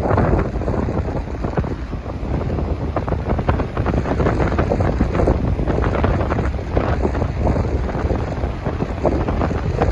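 Strong wind buffeting the microphone in uneven gusts, a loud low rumble with no steady tone.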